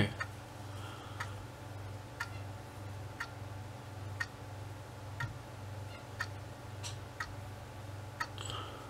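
Clock ticking faintly and evenly, about once a second, over a low steady hum.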